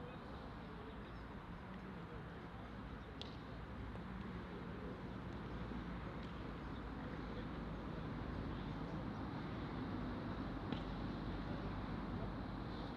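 Outdoor background noise: a steady low rumble under a faint hiss, with a couple of small clicks, one about three seconds in and one late on.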